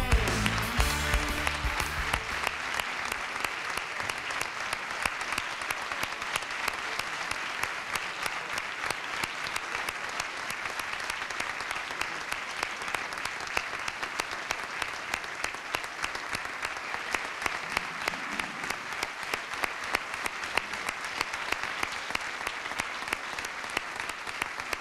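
Audience applauding steadily, a dense even clapping throughout. Guitar music fades out during the first couple of seconds.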